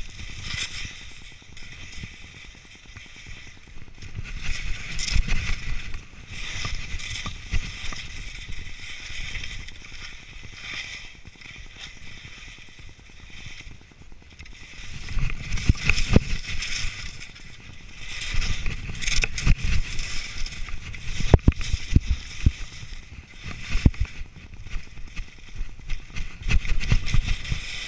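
Skis hissing and scraping over snow in a series of turns, swelling and fading every few seconds, with wind buffeting the camera microphone in low rumbling gusts and a few sharp knocks in the second half.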